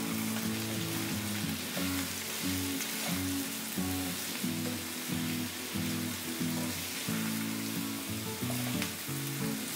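Diced bottle gourd and soaked chana dal sizzling as they sauté in hot oil in a wok, stirred and turned with a wooden spatula. Soft background music plays underneath.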